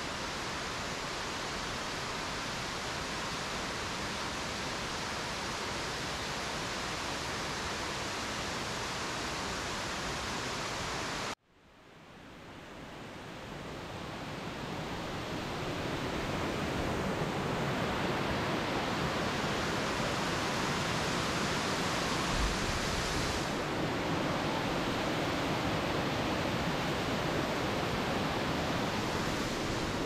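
Steady rushing of Amicalola Falls' cascading water. It cuts out abruptly about eleven seconds in, then fades back up over a few seconds and settles slightly louder.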